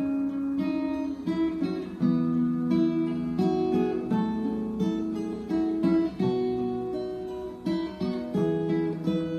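Background music: an acoustic guitar plucking a gentle melody over chords.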